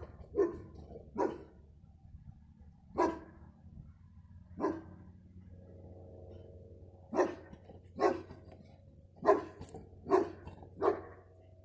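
A dog barking: nine short, sharp barks at uneven intervals, some close together in pairs, with a longer pause in the middle. A steady low hum runs underneath.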